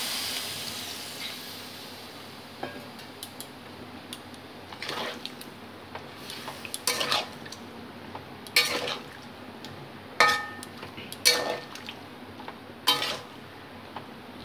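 Sizzle of water hitting the hot oil and frying vegetables in a kadai, dying away over the first couple of seconds. Then a metal spatula stirs the vegetables, scraping and clanking against the pan every second or two, a few strikes ringing briefly.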